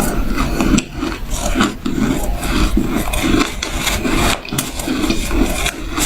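A person chewing a mouthful of shaved ice, crunching and grinding at a steady rhythm of about three chews a second.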